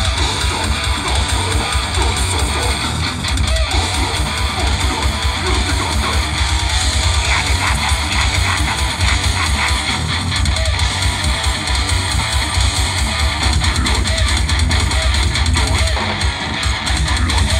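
Live grindcore band playing loud: distorted electric guitar and bass guitar over fast, dense drumming.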